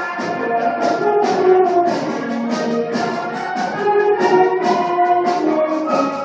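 Concert band playing, with the brass prominent: sustained chords with a regular accented pulse of about three notes a second.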